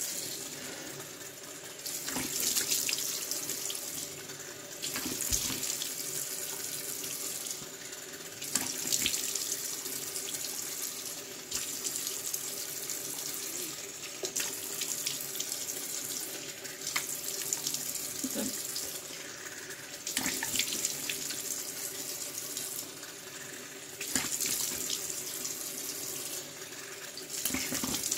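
Bathroom tap running steadily into a sink, with louder splashing surges every few seconds as water is scooped up to rinse the face.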